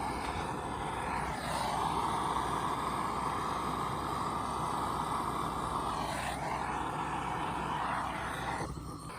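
Handheld butane torch burning with a steady rushing hiss, wavering briefly twice, then shut off abruptly near the end.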